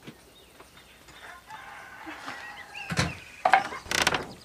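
Chickens clucking and squawking, with a few short, loud calls in the second half.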